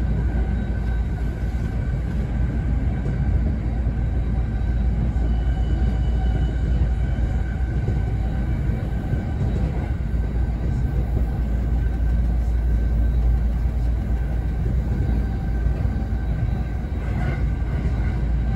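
JR East E217 series electric train running steadily, heard from inside its Green car: a continuous rumble of wheels on the rails, with a few faint steady tones above it.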